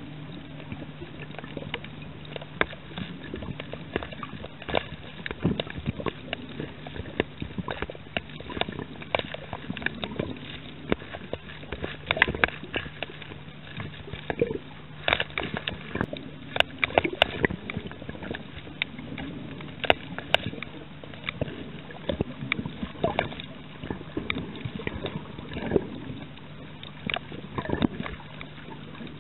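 Underwater sound picked up by a snorkeller's camera over a coral reef: a steady low hum with irregular sharp clicks and crackles and some water sloshing.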